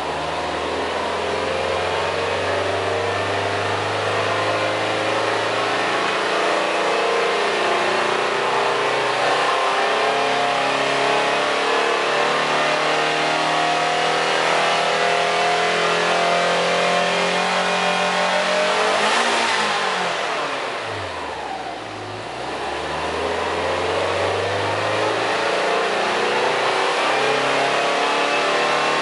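Subaru Impreza S-GT (GH8) 2.0-litre turbocharged flat-four, fully warmed up, revved with the car standing still and heard at the exhaust tip. The engine is held at raised revs that creep slowly upward. About two-thirds of the way through it drops back quickly towards idle, then is brought up again and held.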